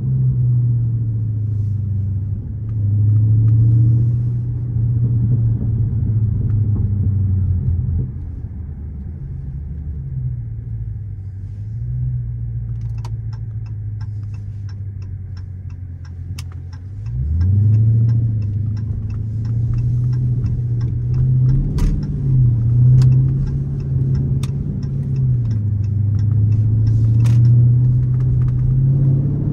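Dodge Charger Scat Pack's 392 HEMI V8, heard from inside the cabin at low town speeds. The pitch rises and falls with light throttle, sinks to idle for a few seconds while stopped, then climbs as the car pulls away about two-thirds of the way in. A regular ticking runs alongside while it is stopped.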